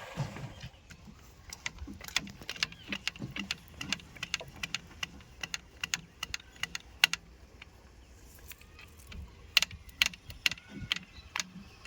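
Irregular sharp clicks and clinks, several a second and coming in clusters, over a faint low hum.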